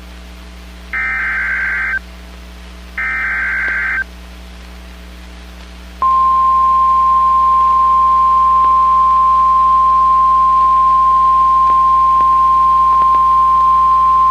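Emergency Alert System SAME header data bursts from NOAA Weather Radio: two one-second bursts of warbling digital data tone about a second apart. From about six seconds in comes the 1050 Hz warning alarm tone, one loud steady tone that signals a warning is about to be read, here a severe thunderstorm warning.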